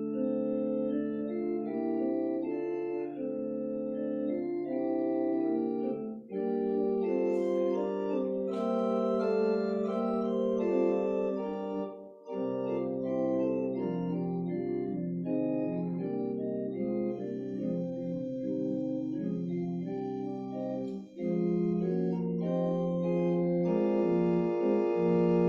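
Organ playing slow music in held chords over sustained bass notes, pausing briefly between phrases three times.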